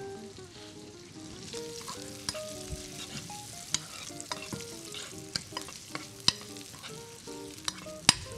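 Strips of meat sizzling in hot oil in a pan as they are stirred with a metal spoon. Irregular sharp clicks and scrapes of the spoon against the pan ride over the steady sizzle, with the loudest click near the end.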